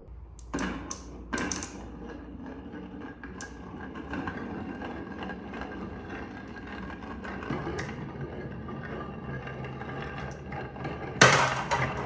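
Marbles rolling and rattling down a marble run of wooden and plastic toy track. A few sharp clacks near the start and a loud clack near the end, as marbles drop and strike the track.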